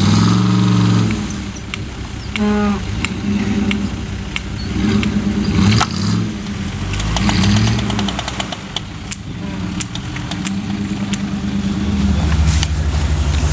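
Off-road SUV engine revving in repeated rising and falling surges as it works through deep snow, with scattered clicks, settling into a heavier steady pull near the end.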